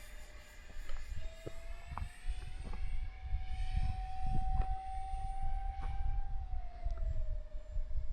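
Electric ducted fans of a 3D-printed RC jet (three 40 mm units) whining steadily in flight. The pitch rises slightly about a second in, holds, then falls back near the end. A low rumble runs underneath.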